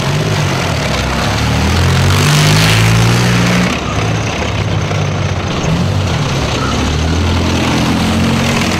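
BMP-2 infantry fighting vehicle's V6 diesel engine running loud as the tracked vehicle drives past close by, a deep steady rumble with a rushing noise over it. It is loudest two to three seconds in, then drops for a moment near four seconds.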